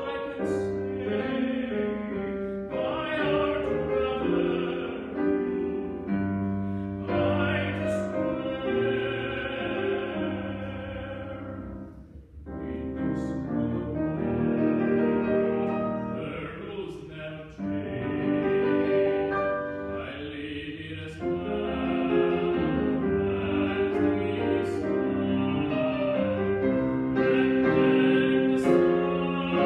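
A male classical singer singing an art song in operatic style, accompanied by grand piano, with a short break in the sound about twelve seconds in.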